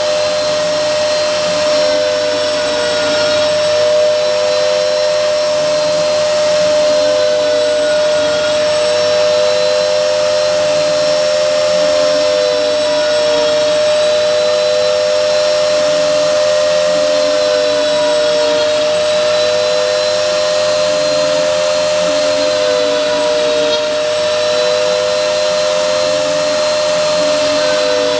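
CNC router milling: a steady high spindle whine, with a second tone that dips and recovers in a repeating cycle about every five seconds as the cutter works along its path.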